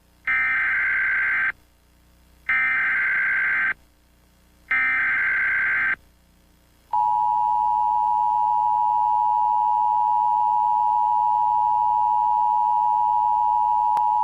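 Emergency Alert System tones: three short bursts of the SAME digital header, each a buzzy data screech about a second long, then about seven seconds in the steady two-tone EAS attention signal begins and holds. It is the opening of an Emergency Action Notification broadcast.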